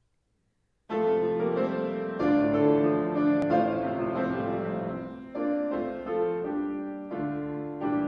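Grand piano playing the introduction to an art song before the voice comes in, starting about a second in, with a flowing run of changing chords.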